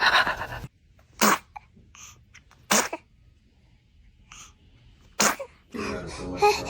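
A baby sneezing three times: short, sharp sneezes a second or two apart.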